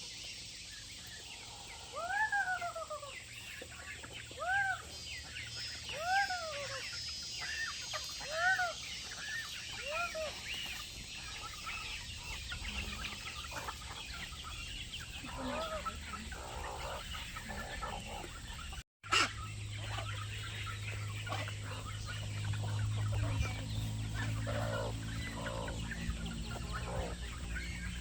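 Chickens clucking and calling: a string of separate rising-and-falling calls in the first half, then a busier patter of short calls. A low steady hum joins in the second half.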